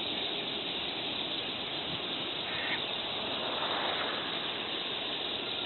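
Steady, dense chatter of a large flock of feeding water birds on open water, with one brief call standing out about two and a half seconds in.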